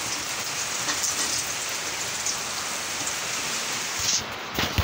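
Heavy typhoon rain falling steadily, an even hiss, with a brief knock just before the end.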